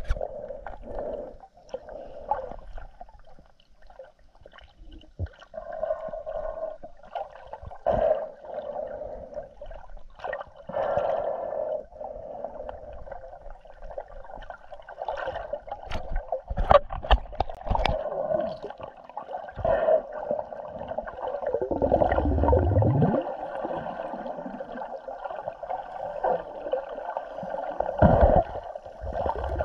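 Muffled underwater sound picked up through an action camera's waterproof housing: continuous gurgling and sloshing with scattered sharp clicks and knocks. Heavier low surges come about three-quarters of the way through and again near the end.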